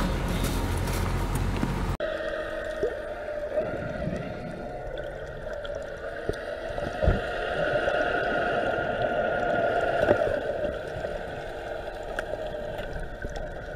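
About two seconds of loud, low rumbling noise, then a handheld underwater sea scooter running underwater: a steady motor whine of several held tones, with water gurgling around it.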